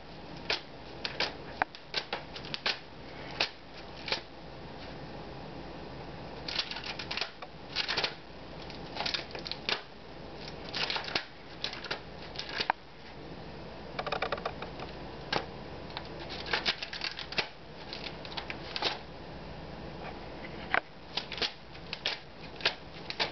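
Envelopes and papers rustling and sliding as a cat paws through a pile of mail, in short, irregular rustles with brief pauses between.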